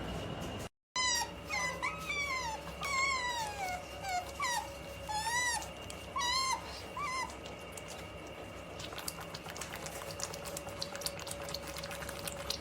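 A sleepy otter making high-pitched whining squeaks: a string of about eight short calls over several seconds, each gliding down or rising and falling. The calls stop and faint scattered clicks follow.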